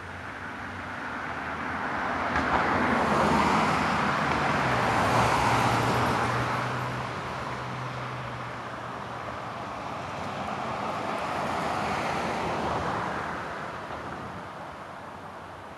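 Road traffic: a vehicle passes with a low engine hum, swelling and fading over several seconds, then a second, fainter vehicle passes.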